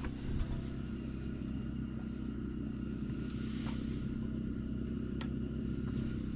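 A steady low mechanical hum, like a motor or engine running, with two or three faint light clicks around the middle.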